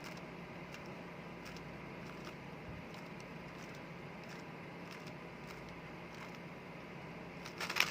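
Faint, scattered clicks of a Rubik's cube's layers being turned, over a steady background hiss and hum, with a quicker, louder cluster of turns near the end.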